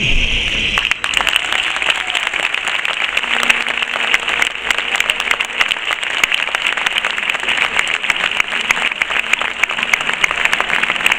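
Crowd applauding, a dense clatter of many hands clapping that sets in about a second in.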